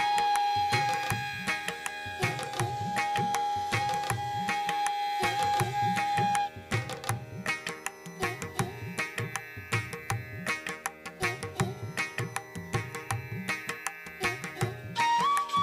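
Background Indian instrumental music: tabla drumming under a long held melody note that stops about six seconds in.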